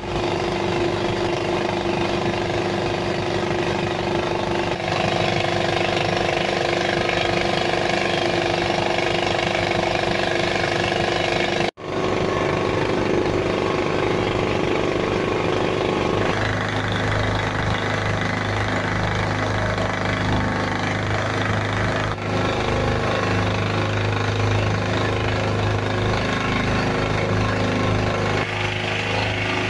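Engine of a motorized outrigger pumpboat running steadily under way, with an even, rapid pulsing beat. It cuts out for an instant about twelve seconds in.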